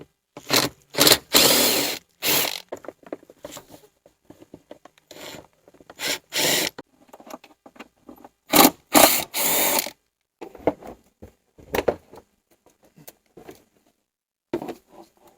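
Cordless 1/4-inch impact driver running in a series of short bursts, backing out Torx body-panel screws. The longest and loudest bursts come about a second in and again about nine seconds in.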